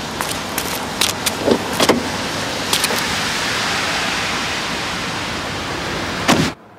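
Steady street and traffic noise with a few scattered footsteps and taps, then a car door shutting with a loud thud near the end, after which the outside noise drops away sharply.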